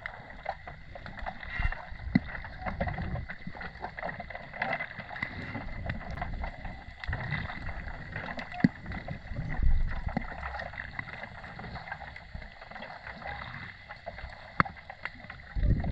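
Underwater ambience: water moving around the microphone, with scattered clicks and crackles and a few louder low gurgling rushes.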